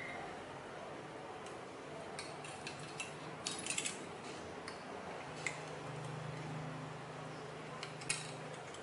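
Light, irregular clicks and crinkles of thin aluminium strips cut from a drink can as they are handled and bent by hand. A low steady hum comes in about five seconds in.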